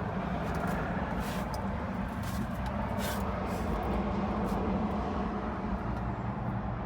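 Steady traffic noise from a nearby interstate highway with wind on the microphone, a constant low hum under it and a few short hissy bursts about one to three seconds in.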